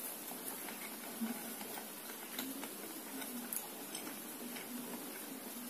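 A person quietly chewing a bite of fried meat-filled pancake, with small mouth clicks and smacks at irregular moments.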